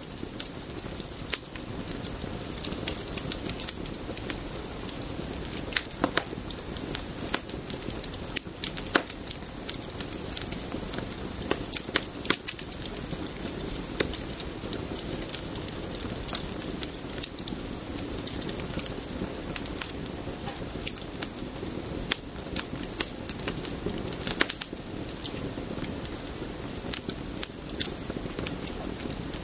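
Campfire burning with constant crackling: many small pops and snaps over a low steady rush of flame, with a few sharper, louder cracks scattered through.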